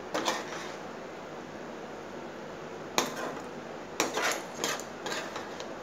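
Metal serving spoon clinking and scraping against a glass bowl as cooked okra masala is spooned in: a knock right at the start, another about three seconds in, then a run of clinks between four and five seconds.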